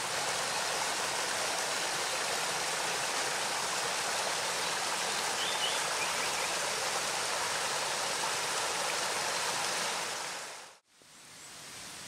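Small mountain waterfall pouring over rocks: a steady, loud rush of water. It cuts off abruptly near the end, leaving a much quieter background hiss.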